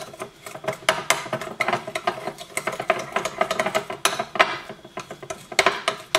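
Metal spoon stirring a gritty sugar-and-honey lip scrub in a bowl, scraping and clinking against the bowl in quick, irregular strokes.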